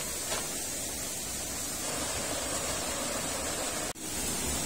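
Steady rushing of water from a nearby waterfall and stream. The sound drops out for an instant about four seconds in, then returns.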